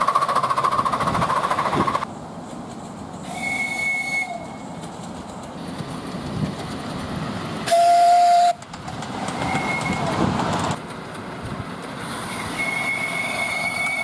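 Miniature live-steam locomotives sounding their steam whistles one after another: a long whistle at the start, shorter high whistles in between, and the loudest, a short blast, about eight seconds in, over the rumble and clatter of the small engines running on the track.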